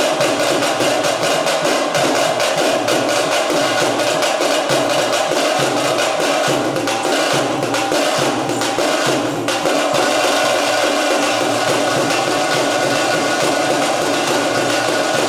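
Veeragase folk dance music: fast, continuous drumming with dense rapid beats, loud and unbroken throughout.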